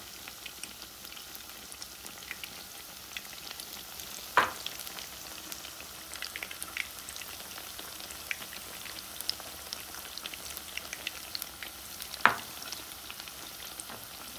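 Battered tilapia fillets frying in hot oil in a pan: a steady sizzle full of small crackles, with two louder sharp pops, one about four seconds in and one near the end.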